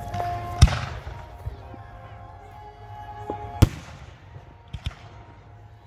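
Aerial firework shells bursting: two loud booms about three seconds apart, then a couple of fainter pops near the end, over music with steady held notes.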